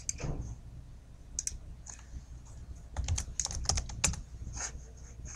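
Typing on a computer keyboard: scattered key clicks, with a quick run of keystrokes about three to four seconds in.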